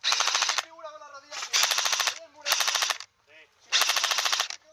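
Airsoft rifle, the Magpul PTS RM4 replica, firing on full auto in four short bursts of rapid, evenly spaced shots, with brief pauses between them.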